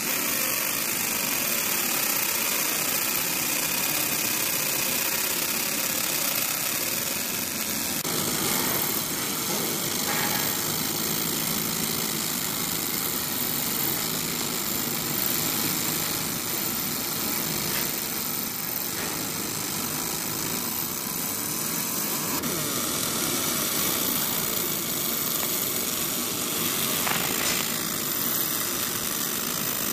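Laser engraving machine running steadily while engraving acrylic: an even mechanical whir and hiss.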